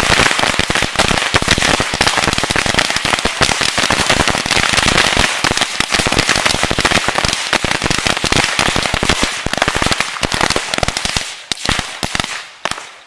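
Hundreds of bottle rockets going off together: a dense, continuous rattle of small bangs over a steady hiss, thinning out to separate pops near the end as the barrage runs down.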